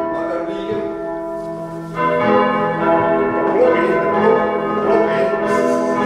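Church bells swung by hand with ropes, ringing on with many overlapping, lingering tones; the sound dips slightly, then a fresh, louder stroke comes in about two seconds in.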